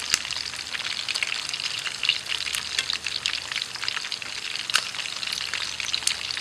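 Pieces of sun-dried field rat sizzling and crackling in hot oil in a frying pan, turned with chopsticks, with a couple of sharp clicks.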